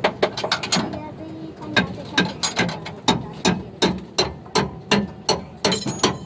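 Hammer blows on steel in a steady rhythm of about three a second, with a short pause about a second in and a ringing strike near the end.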